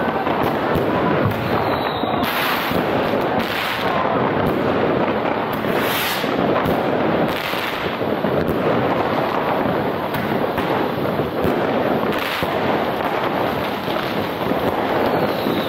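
Many fireworks and firecrackers going off at once: a steady, dense crackle with louder single bangs every few seconds.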